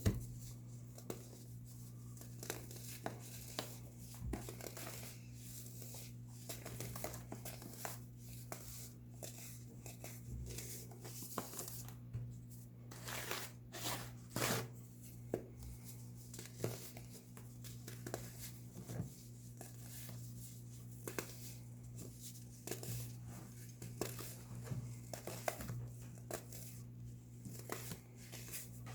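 Compressed baking soda being crushed and crumbled, a steady stream of irregular crisp crackles and crunches.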